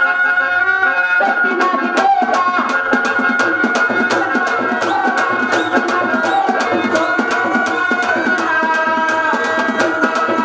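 Live dance accompaniment on two-headed barrel hand drums, played in a fast, driving rhythm that comes in about a second in, over steady held melody notes.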